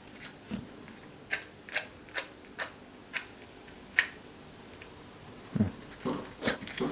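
Wooden matches rattling and clicking in a cardboard matchbox as they are taken out: a string of sharp, separate ticks. Near the end, a few louder scrapes as a match is struck on the box and snaps in half.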